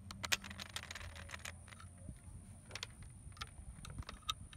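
Light metal clicks and clatter of a screwdriver and crimped ring-terminal wires being handled at a scooter battery's terminal bolts: a quick cluster in the first second and a half, then single clicks spaced out after that.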